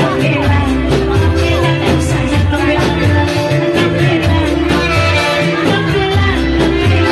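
A woman sings through a microphone over loud Indramayu reog band music with a steady beat.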